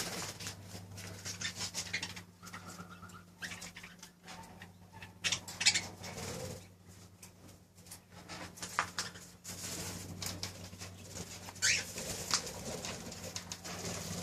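Small aviary birds (parakeets, cockatiels, quails) giving scattered short calls and chirps, with wing flutters and faint scratchy clicks, over a steady low hum.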